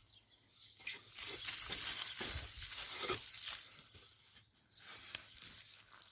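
Rustling, scraping and tearing of soil and potato plants being dug and moved, loudest from about one to four seconds in.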